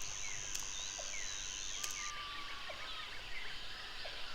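Jungle ambience: many short bird chirps and whistles over a steady high-pitched insect drone, which stops about two seconds in.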